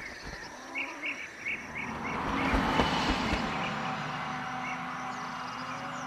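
Small birds chirping in short, repeated high notes, while a passing vehicle's noise swells about two to three seconds in and then fades slowly.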